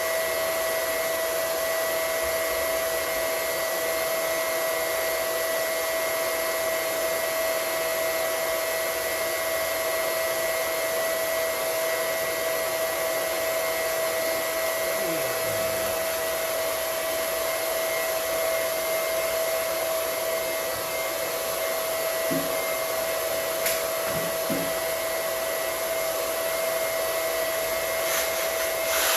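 Small electric water pump running steadily with a constant whine, pumping the water out of an old water heater tank.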